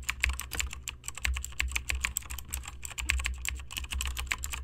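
Computer keyboard typing: rapid, irregular keystroke clicks, many a second, over a low hum.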